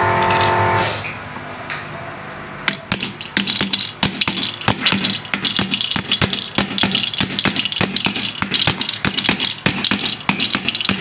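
Rapid, irregular light metal taps from a small round-headed hammer doming a brass blank in the dished end of a spray-paint can; they start a few seconds in. Before them, a passing motor vehicle's engine fades out about a second in.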